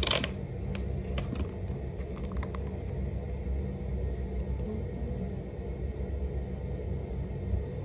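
Steady low rumble with faint background music, and a few light clicks in the first three seconds as eyeshadow and an applicator are handled.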